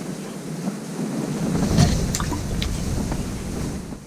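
Wind buffeting the fishing tent and the microphone, a gust of low rumble building about a second and a half in, with a few short clicks in the middle.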